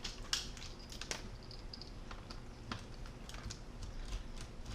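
Light, irregular clicks and ticks of a precision Torx T6 screwdriver turning out a small display mounting screw on a laptop, a few faint clicks a second.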